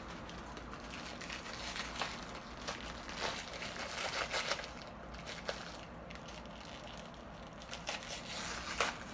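Plastic wrapper of an L.O.L. Surprise blind bag crinkling and crackling irregularly as it is handled and opened.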